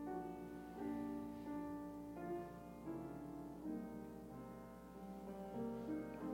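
Soft piano music, slow held chords changing about once a second.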